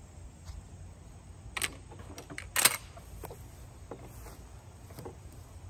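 Handling noise from a shotgun and shooting gear: a few sharp clicks and knocks, the loudest about two and a half seconds in, as ear muffs go on and the gun is picked up from the bench.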